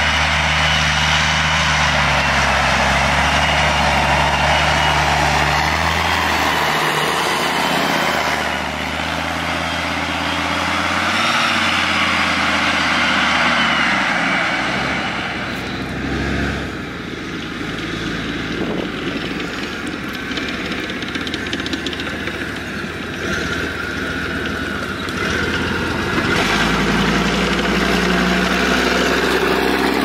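Leopard 1-based tracked armoured vehicles driving on a sandy track, their ten-cylinder diesel engines running steadily with a high whine over the low engine note. The sound drops a little about halfway through and grows louder again near the end as a vehicle comes close.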